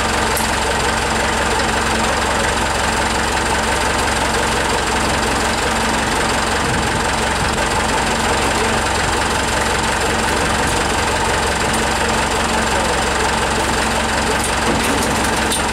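Forklift engine idling steadily.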